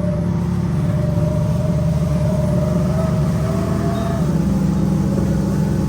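Jet ski engine running steadily at speed.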